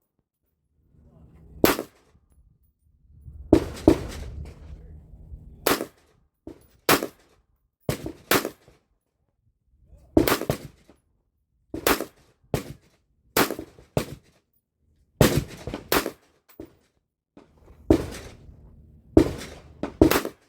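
AR-15 rifle fired one shot at a time, about eighteen sharp reports in irregular succession, roughly one a second.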